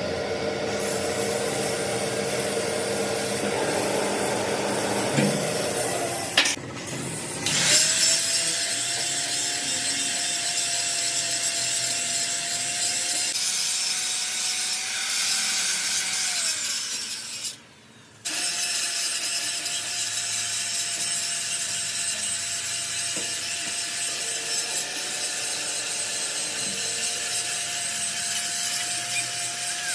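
Electric grinder working on steel: a steady whine over a harsh hiss, sagging slightly under load near the middle. It breaks off briefly twice, about six seconds in and again about eighteen seconds in.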